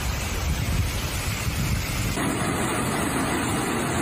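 Low rumble with wind on the microphone, recorded from a vehicle driving through a flooded street. About two seconds in, this changes abruptly to the steady rush of a fast torrent of muddy floodwater.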